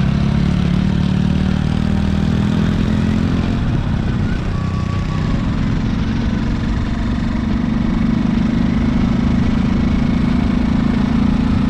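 A motor vehicle's engine running steadily on the move, a low hum over a constant rushing noise, dipping slightly about four seconds in and then holding steady.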